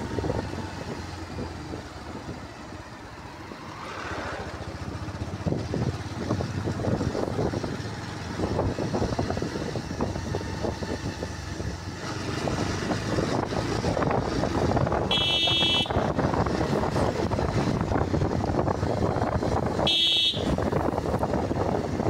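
Motorcycle riding along a road, engine and road noise steady and getting louder about halfway through. Two short horn toots, a longer one about two-thirds of the way in and a brief one near the end.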